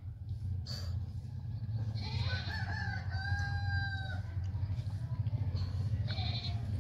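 A rooster crowing once, one call of about two seconds that ends on a long held note, over a steady low hum. A shorter call follows near the end.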